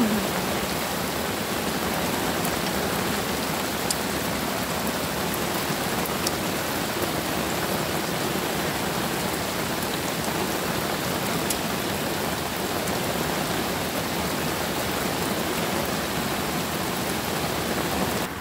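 Steady rain falling and pattering on an umbrella overhead, an even hiss with a few faint ticks.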